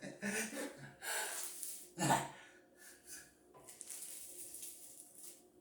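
A man breathing hard in short noisy breaths, with brief low grunts of effort in the first second and again about two seconds in.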